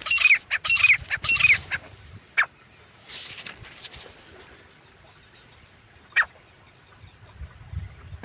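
Grey francolin (teetar) calling: a fast run of repeated falling notes in the first two seconds, then single notes about two seconds in and again about six seconds in. A short hiss comes a little after three seconds.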